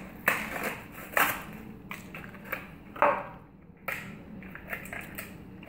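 A small plastic toy package being crinkled and torn open by hand: sharp plastic crackles, loudest three times, with softer crinkling between.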